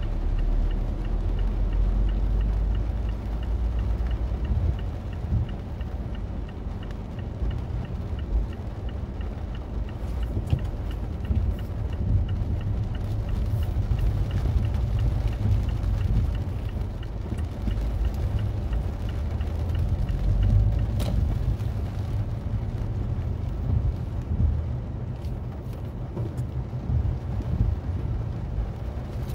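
Mazda 3 on the move, heard from inside the cabin: a steady low rumble of road and engine noise. A regular light ticking from the turn signal runs through the first half and stops about halfway.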